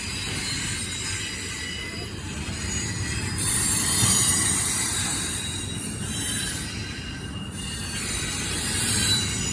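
CSX intermodal freight train rolling past: a steady rumble of the cars on the rails with thin, high wheel squeal over it, louder and hissier for a few seconds in the middle.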